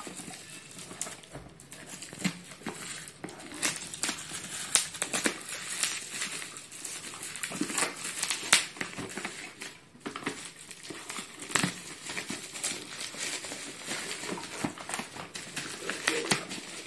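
Bubble wrap and plastic packing tape crinkling and crackling in an irregular string of rustles and clicks as scissors cut through the wrapping and hands pull it off a boxed bottle.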